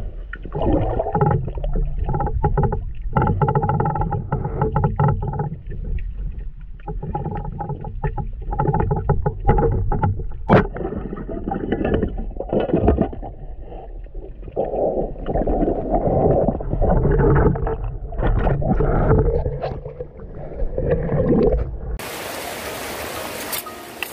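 Underwater sound of a spearfisher swimming, heard muffled through a camera housing: water churning and bubbling in irregular surges, with a sharp click about ten seconds in as the speargun is fired and a fish is hit. Near the end it switches abruptly to the hiss of shallow river water running over stones.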